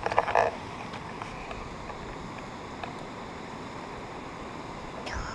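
Steady wind noise on the microphone outdoors, with a brief vocal sound just after the start.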